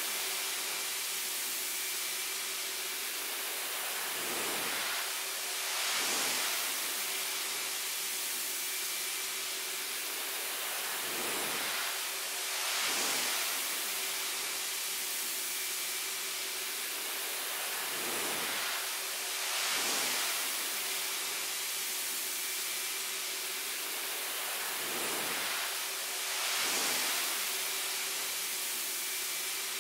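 A steady hiss that swells and fades about every seven seconds, over a faint steady hum.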